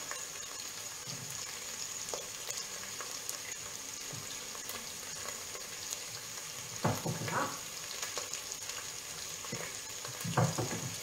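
Soffritto in a pan sizzling steadily with a bright hiss, wine freshly added. A few short knocks of a knife on a wooden cutting board come through, the loudest in the second half.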